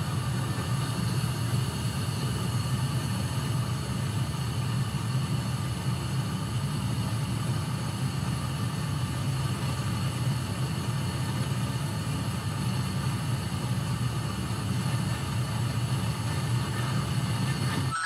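Gas furnace running with its burners lit and the blower fan on: a steady low rumble and hum of the blower, draft inducer and burner flames, with several steady whining tones above it.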